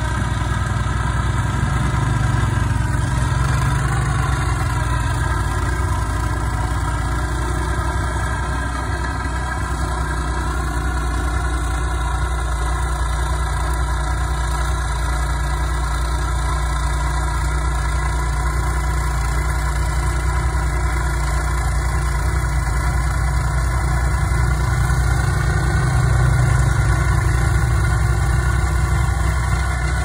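A motor vehicle's engine running steadily at an even speed, its pitch holding nearly constant, a little louder near the end.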